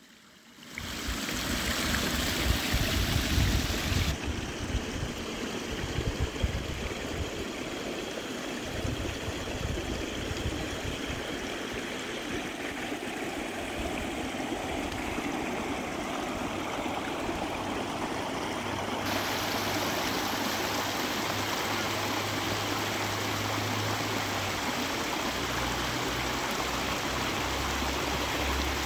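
River water flowing, a steady rushing noise that changes abruptly twice, about four seconds in and again near twenty seconds, with an irregular low rumble underneath.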